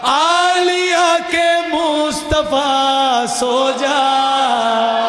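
A man singing unaccompanied in long, drawn-out held notes that slide and waver between pitches, a line of a lori (lullaby lament) sung in a Shia majlis recitation, with short breaks about two seconds in and again past three seconds.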